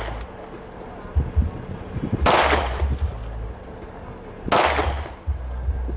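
Two single gunshots about two seconds apart, each trailing off in a long echo.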